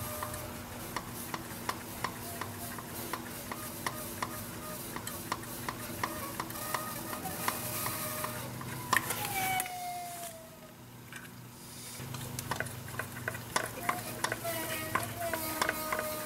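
Fuel system of an 8.3 L Cummins with an inline injection pump being bled of air: a whine as air escapes through the pump's bleeder or pressure regulator, over a run of crackling, sputtering ticks. The whine comes and goes, glides down in pitch about nine seconds in, and the sound drops away briefly before returning.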